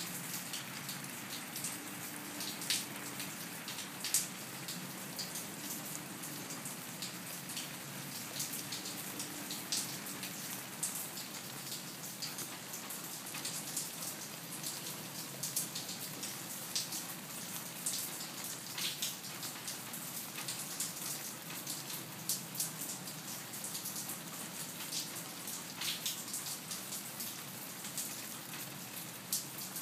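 Steady light rain pattering on leaves and brick, with many individual drops ticking sharply.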